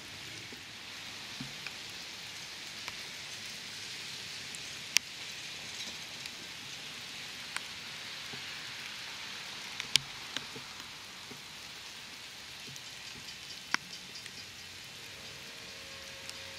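Steady outdoor hiss with a few sharp ticks, and faint held tones coming in near the end.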